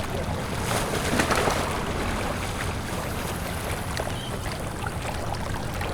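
Shoreline water ambience: small waves lapping and water burbling with a continual irregular bubbling and splashing over a steady low rumble.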